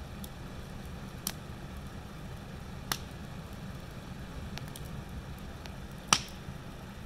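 Wood fire burning in a metal fire pit, giving three sharp pops, the loudest about six seconds in, over a steady low rumble.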